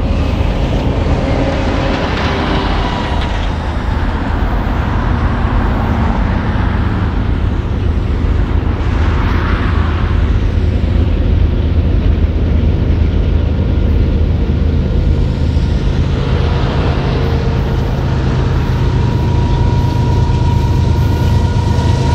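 Several BNSF GE diesel-electric locomotives at the head of an intermodal train approaching under power, a steady low engine drone that grows a little louder near the end.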